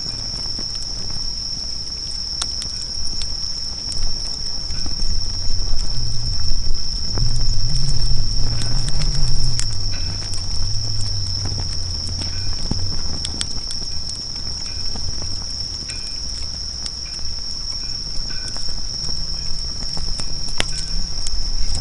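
Wood campfire crackling with scattered sharp pops, over a steady high insect trill like crickets. A low rumble swells up in the middle and fades back.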